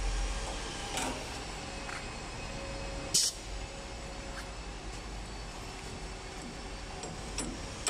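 CNC wood lathe and its equipment running with a steady hum, with a short, sharp hiss of compressed air about three seconds in from the lathe's pneumatic cylinder, and a few light clicks.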